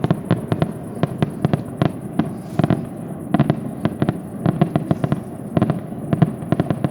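Aerial fireworks going off in a rapid, irregular string of sharp bangs, several a second, with a crackling haze between them.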